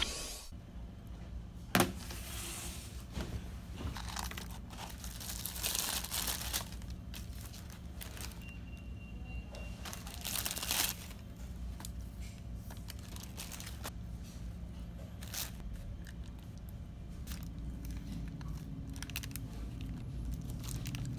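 Paper burger wrappers crinkling and rustling in bursts as they are unwrapped and handled on a tray, with a sharp click about two seconds in, over a steady low room hum.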